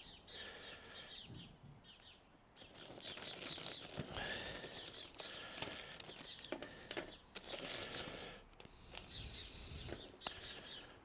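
Handling noise: irregular light clicks, knocks and rustling as small metal hose clamps and pipe parts are picked up and sorted, with faint bird chirps in the background.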